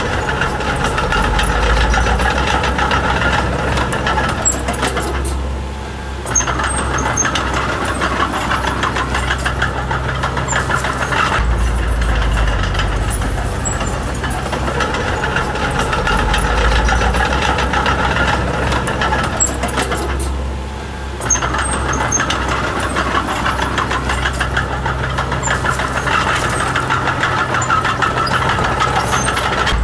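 Diesel engine of a small crawler bulldozer running hard under a steady clatter of clicks. Twice, about fifteen seconds apart, the engine note briefly sags and falls, then a sharp metallic clank follows and the engine picks up again.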